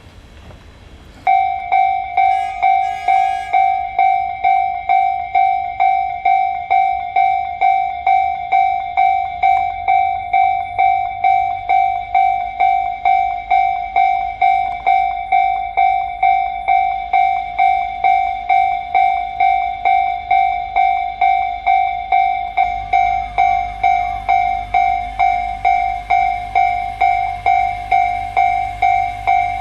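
Japanese railway level-crossing warning bell starting about a second in and ringing evenly, a little over one and a half strikes a second. After about twenty seconds a low rumble of a train comes in underneath.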